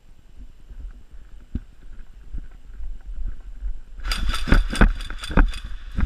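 Airsoft guns firing a quick string of sharp cracks, about eight to ten in a second and a half, starting about two thirds of the way in, with one more shot near the end. Before that only a low rumble and a few scattered knocks.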